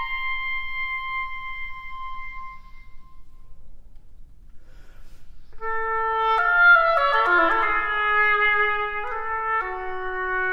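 Solo oboe: a long held high note fades away, and after a pause of about two seconds the oboe comes back in with a quick run of notes that settles into longer held notes.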